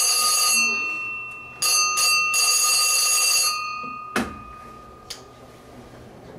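Station departure bell ringing in two spells, the second stopping about three and a half seconds in, signalling that the cable car is about to leave. A single thump follows about four seconds in.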